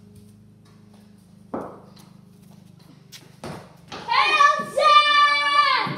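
Cricket ball knocking on a concrete floor and off the bat, a couple of sharp knocks about three seconds in, followed by a loud, drawn-out shout of about two seconds, over a faint steady hum.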